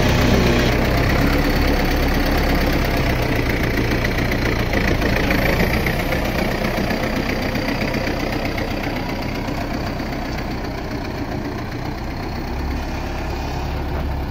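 Tractor's diesel engine running steadily while it works a front-loader bucket, gradually growing quieter toward the end.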